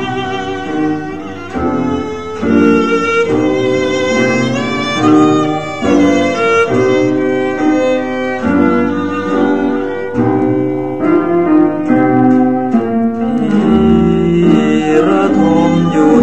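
Instrumental opening of a Thai popular song played from a vinyl record through a mono cartridge: a string section carries the melody over bass notes, before the singing comes in.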